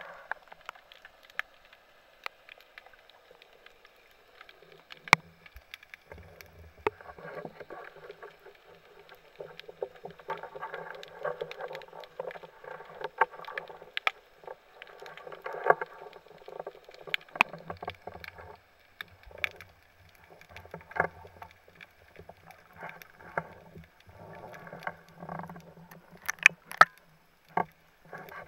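Underwater sound picked up by a camera housing: a shifting wash of water movement with scattered sharp clicks and knocks throughout, a cluster of louder clicks near the end.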